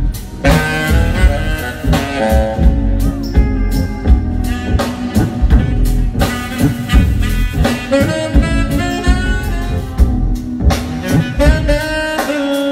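Live jazz-fusion band playing: a saxophone line over drum kit and bass.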